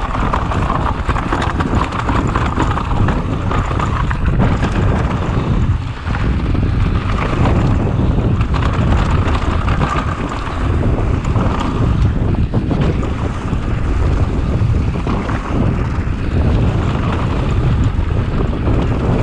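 Wind buffeting the camera microphone over a mountain bike running fast down a dry dirt trail: steady tyre roar on the dirt, with frequent clicks and knocks as the bike rattles over bumps and rocks.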